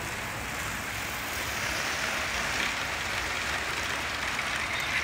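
Hornby OO-gauge live steam model locomotive and its coaches running on the track: a steady rushing rolling noise, swelling a little as the train passes close. The engine is held at low speed, weighted and pulling a long train of coaches.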